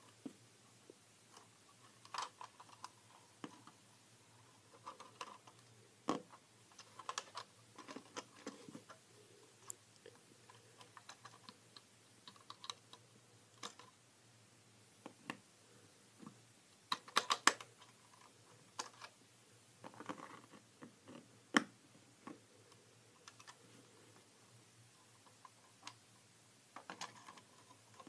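Plastic LEGO bricks clicking and knocking as a built model is handled and its parts opened and moved: faint, irregular clicks with a few louder clusters, over a low steady hum.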